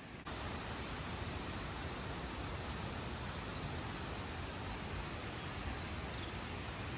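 Steady outdoor background hiss, with faint, short, high chirps repeating every second or so.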